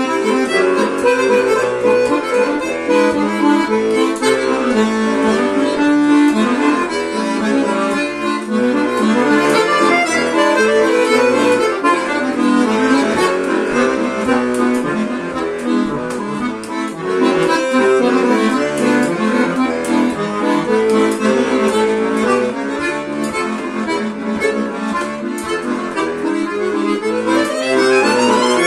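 Tula bayan (Russian button accordion) played solo: a fast tune with busy runs of notes over the bass, ending in a quick rising run near the end.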